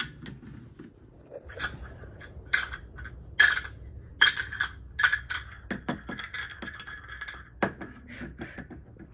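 Small toy pots, pans and utensils clinking and knocking on a play-kitchen stove, a string of separate knocks, some ringing briefly.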